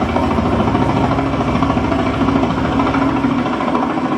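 Helicopter sound effect: a steady, rapid thudding of the rotor over the engine, marking rescuers arriving over the floodwater.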